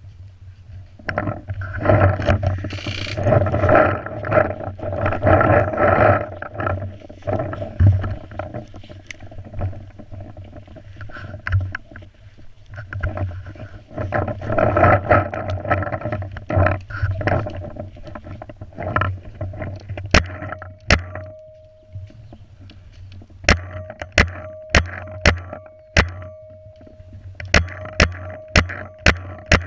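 Paintball marker firing: sharp pops in quick runs during the last third, each followed by a short hum. Before that, rustling and clattering of gear as the player moves through brush.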